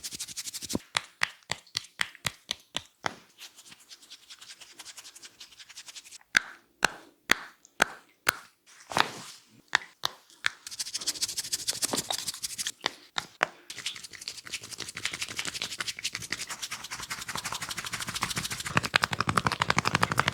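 Head-massage hand sounds: a run of sharp slaps and claps, then fast, continuous scratching and tapping of fingers in the hair from about halfway through.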